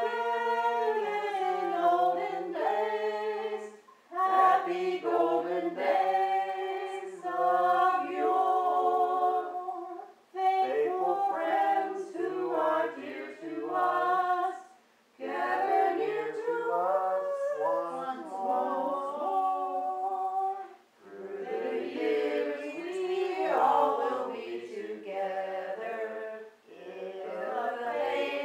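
A small group of amateur voices, men and women together, singing a Christmas song unaccompanied, in phrases a few seconds long with short breaks for breath between them.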